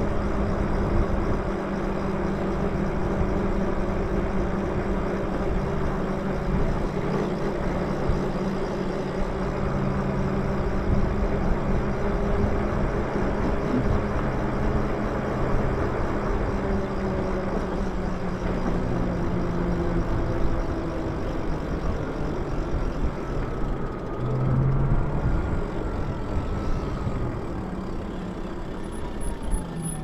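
Wind rushing over the microphone and tyres rolling on pavement while riding an electric bike, with a steady electric motor hum that shifts in pitch after about twenty seconds.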